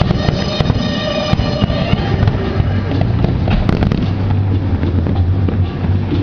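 Fireworks display going off: a dense run of bangs and crackling from shell bursts and low-level crackling fireworks, with sharp cracks thickest in the first two seconds and again about four seconds in. Music plays alongside.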